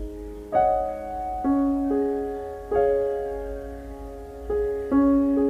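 Slow, gentle background piano music: soft notes and chords struck about once a second and left to ring and fade.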